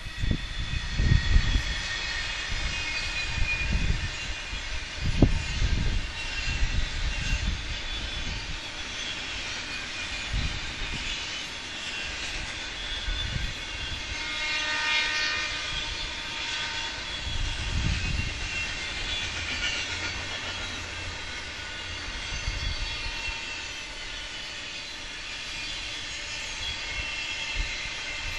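Intermodal freight train cars rolling past: steel wheels running on the rails with a steady high-pitched metallic ringing, strongest about halfway through, over an uneven low rumble.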